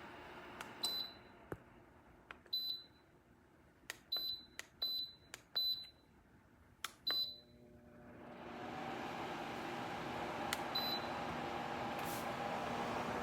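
Lasko tower fan-heater's control panel beeping as its buttons are pressed: about seven short high beeps, each with a button click. The fan's airflow noise dies away after the first beep, and about eight seconds in the fan starts again and builds to a steady whoosh with a low hum.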